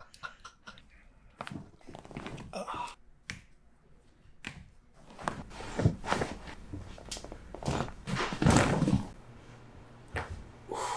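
Joints popping during a chiropractic neck adjustment: a scatter of short, sharp cracks, with a heavier thunk about eight and a half seconds in.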